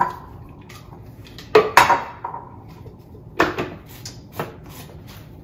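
Hard clinks and knocks as a single-serve blender cup loaded with dried porcini is handled and its blade lid fitted on. There are several separate strikes, the loudest pair a little under two seconds in.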